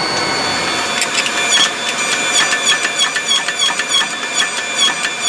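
Hydraulic forging press running as it presses a red-hot pattern-welded steel billet for a forge weld: a steady mechanical whine with a regular pulse about three times a second. A low rumble beneath it drops away about a second in.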